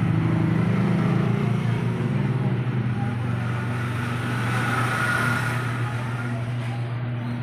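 Steady low electric hum, with indistinct voices over it for the first couple of seconds.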